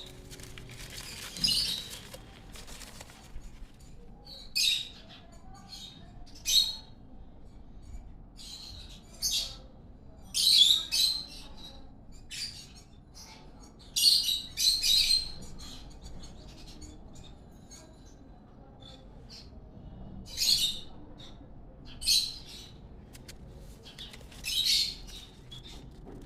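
Baby pet parrot giving short, shrill, scratchy calls, about a dozen at irregular intervals, some in quick pairs or triplets.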